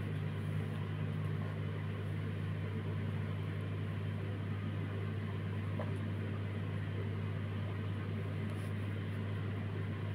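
A steady low electrical hum with a faint even hiss, unchanging in pitch and level throughout, with no rhythmic stitching clatter.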